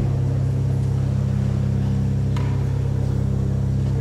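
Church organ holding a steady low drone of a few deep sustained tones, unchanging throughout. A faint click sounds about halfway through.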